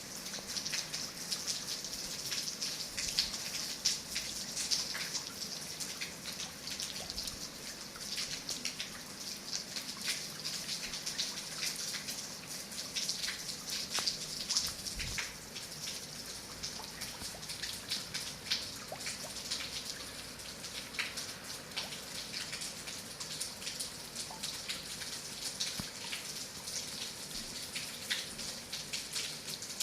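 Heavy rain falling: a steady hiss thick with many separate drop hits.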